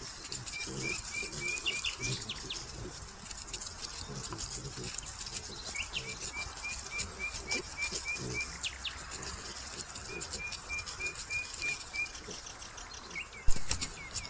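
A songbird repeats one short, high note in quick, even runs of about four notes a second, three times, over faint rustling. A single sharp knock comes near the end.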